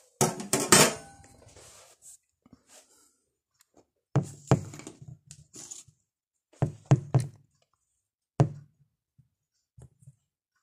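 Rustling handling noise and clatter, then a series of sharp knocks and thuds, about six, as a small frying pan is moved and set down on a glass ceramic hob.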